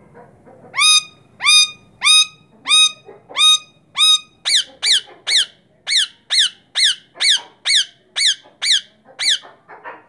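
Rose-ringed parakeet giving a series of loud, shrill calls. First come about six calls that rise and then level off, then a quicker run of about a dozen shorter, falling calls.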